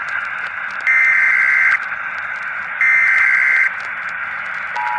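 Emergency Alert System SAME header data bursts: two screeching digital tone bursts of about a second each, a second apart, over a steady static hiss. Just before the end the steady two-tone EAS attention signal begins.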